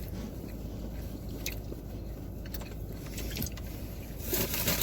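Steady low hum inside a car's cabin, with a few small clicks and a short rustle near the end.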